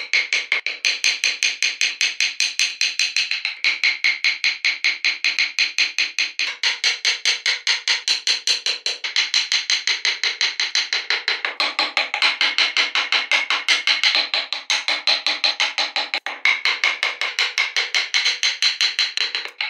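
A carving chisel driven into hardwood with quick, light hammer taps, about five sharp, ringing taps a second, with a few short pauses between runs.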